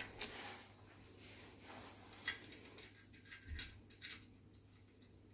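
Faint handling noise from aluminium antenna tubes and their metal clamp brackets: scattered small clicks and light knocks over a low steady hum, the sharpest click about two seconds in.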